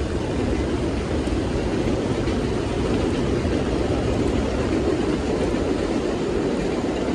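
Torrential rain falling: a steady, even rush of heavy rain.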